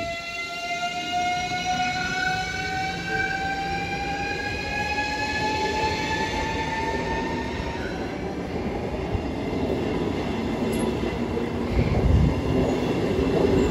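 Lastochka (Siemens Desiro RUS, ЭС2Г) electric train pulling past, its traction drive whining in a tone that rises steadily in pitch as it gathers speed, over the rumble of the wheels on the rails. A heavier knock from the running gear comes about twelve seconds in.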